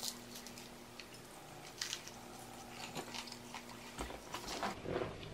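Faint crackling as a piece of sourdough toast is torn apart, then a bite and chewing of the toast.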